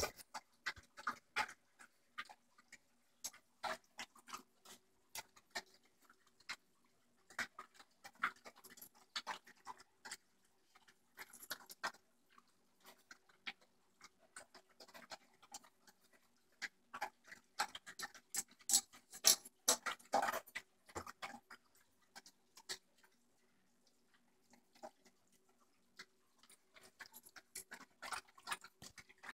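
A dog eating kibble fast from a stainless steel bowl: a run of crunches and sharp clicks against the metal, thickest about seventeen to twenty-one seconds in. The haste is the too-fast eating that risks bloat. A faint steady hum sits underneath.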